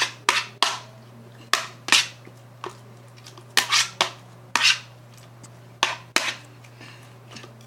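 Spoon clinking and scraping against a bowl while stirring glue slime, about a dozen sharp, irregular knocks.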